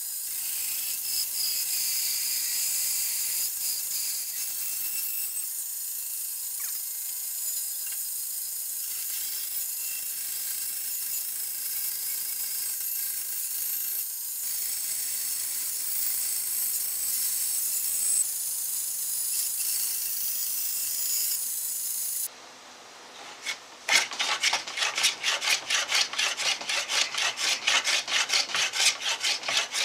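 Bandsaw blade cutting through a laminated wooden guitar neck blank, a steady high hiss. About three-quarters of the way through it stops, and after a short lull a hand plane shaves wood from the neck in quick short strokes, about four a second.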